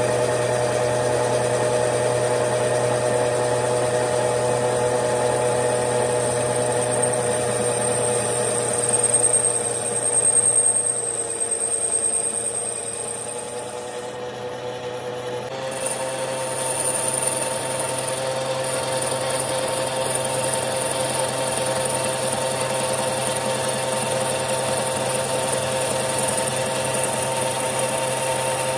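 A motor-driven workshop machine tool running steadily with a high whine, working metal parts. Its pitch changes abruptly about halfway through.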